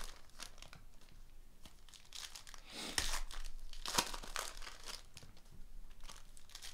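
Foil wrapper of a 2018 Elite Extra Edition baseball card pack crinkling and tearing as it is handled and peeled open by hand, in irregular bursts of crackle, loudest about three and four seconds in.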